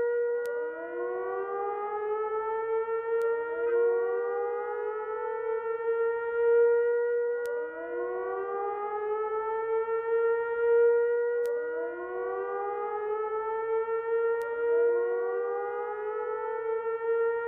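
Siren-like wailing over a steady held tone: overlapping rising swoops, each climbing and then levelling off, repeat about every two seconds. A few faint clicks come now and then.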